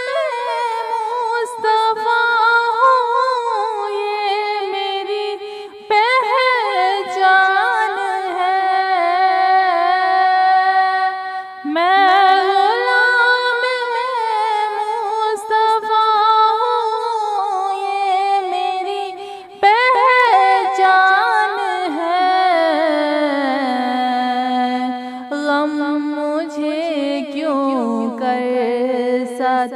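A woman's solo voice singing an Urdu naat, a devotional poem in praise of the Prophet, in long drawn-out notes with wavering ornaments and no instruments. New phrases begin about every six to eight seconds, and the melody sinks to lower notes in the last several seconds.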